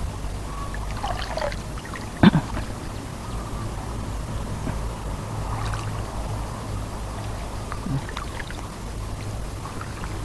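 Water trickling and sloshing over a steady low hum. There is one sharp, loud hit about two seconds in.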